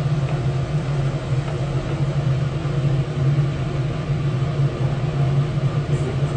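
Laboratory fume hood's exhaust fan running with a steady low hum.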